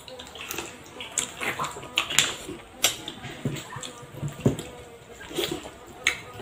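Close-up eating sounds: wet chewing and lip smacks, and fingers squishing and mixing rice and curry on plates, with scattered irregular clicks.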